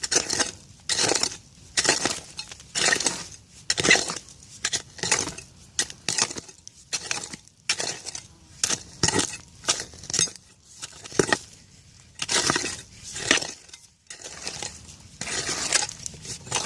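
A hand digging tool scraping and stabbing into soil strewn with broken bottle glass, a little more than one stroke a second, each with a gritty scrape and clink of glass. The strokes pause briefly about fourteen seconds in.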